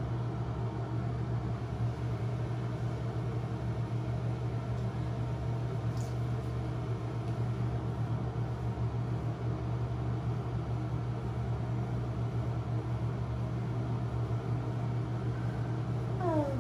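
Steady low hum of a bathroom ventilation fan, with a short falling tone near the end.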